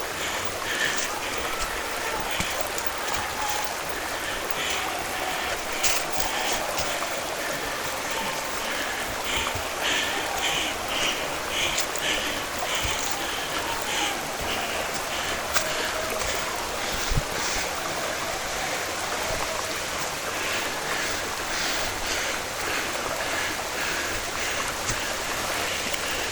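Steady rush of flowing water from the Erin Ijesha waterfall stream, with irregular short rustles on top of it.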